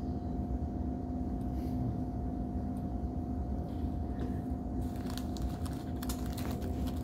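Steady low mechanical rumble and hum with a constant mid-pitched tone, with faint rustling and clicks in the last two seconds.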